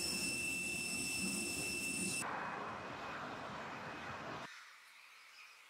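A parked airliner's engine whine, several steady high tones over a low rumble, cuts about two seconds in to a wash of road traffic noise, then cuts again, about four and a half seconds in, to a much quieter outdoor ambience with faint high chirping.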